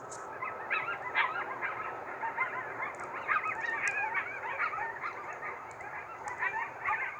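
A pack of coyotes yipping together: a chorus of many short, overlapping high calls that starts about a second in and breaks off near the end.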